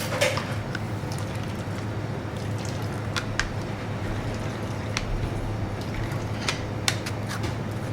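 Leche de tigre being pressed by hand through a strainer: soft wet squelching with scattered light clicks of utensils, over a steady low hum.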